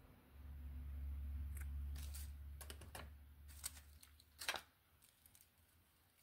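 Glass beads clicking and tapping against each other as a finished elastic bead bracelet is handled, over a low rumble of hands moving near the microphone for the first few seconds. A sharper, louder click comes about four and a half seconds in.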